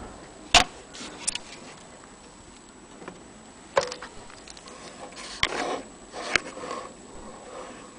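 Handling noise: about five scattered sharp clicks and knocks, the loudest about half a second in, with a short muffled rustle between them, over a low background hiss.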